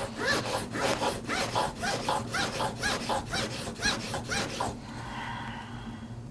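Blade of a J2 beauty shear stroked back and forth by hand on a 1200 grit diamond sharpening stone. The rapid, even scraping runs at about four strokes a second, each with a short rising squeal, and stops about three-quarters of the way through. The strokes are grinding metal off the edge along the ride line to get beyond a crescent-shaped nick at the tip.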